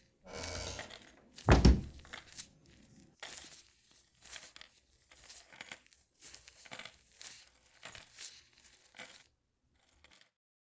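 Layered horror foley of a creature moving in an attic. A noisy rustle opens, then one heavy thump comes about a second and a half in. After that come irregular crinkling, scraping rustles, from latex gloves crumpled by hand, about two a second, which stop about a second before the end.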